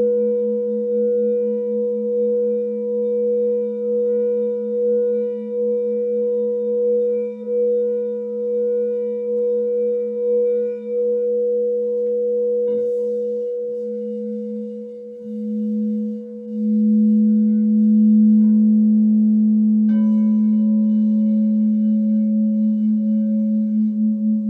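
Crystal singing bowls sounding in long sustained tones, a low hum and a higher tone that pulse slowly as they beat. About halfway through a bowl is struck and adds higher ringing tones; the low tone then swells louder, and another strike comes near the end.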